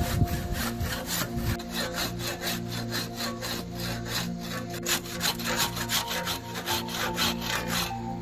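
Hand saw cutting through dry apple wood in steady back-and-forth strokes, about three a second, stopping near the end.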